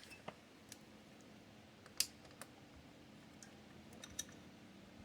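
Faint scattered metal clicks and taps of vise grips (locking pliers) being repositioned and clamped on a broken exhaust stud, about half a dozen, the loudest about two seconds in.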